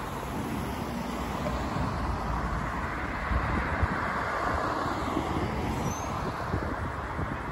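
Distant rumble of an Atlas V rocket in flight: a low, crackling roar that swells from about two seconds in to about five seconds in.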